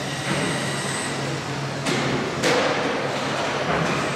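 RC short-course trucks racing on an indoor track: a steady noise of motors and tyres, with two sharp knocks about two and two and a half seconds in, the second the louder.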